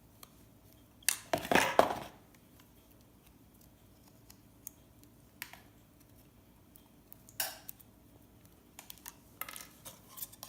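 Scattered clicks, clinks and short scrapes of hard electronic scrap and plastic containers being handled while components are pried off circuit boards, with a short cluster about a second in and another near the end.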